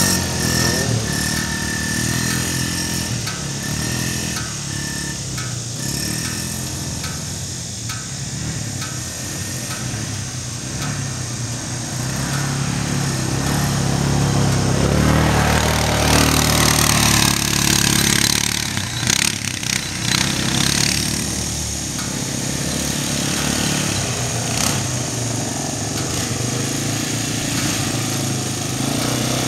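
Four-stroke ATV engines running: a quad idling close by while a small youth quad rides around the track. The engine sound gets louder and rougher for several seconds about halfway through.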